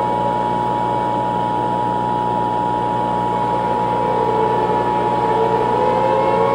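Emergency-broadcast attention signal: two steady tones sounding together over tape hiss and a low hum, with a lower wavering tone in the second half.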